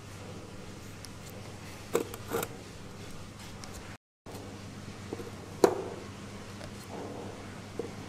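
Steady low room hum with a few short knocks and clicks, the loudest a little past halfway, typical of metal parts and tools being handled on a workbench.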